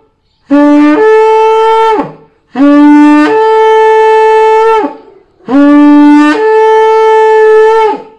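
Kudu-horn shofar blown in three long blasts. Each blast starts on a lower note and steps up to a higher note that is held, then falls away at the end.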